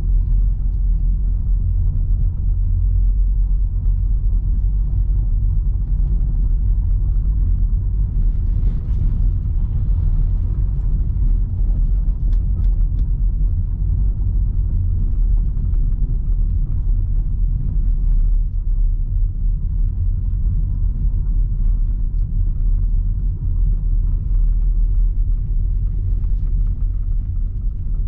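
A 2020 Opel Astra with a 1.2-litre petrol engine on the move: a steady low rumble of engine and road noise.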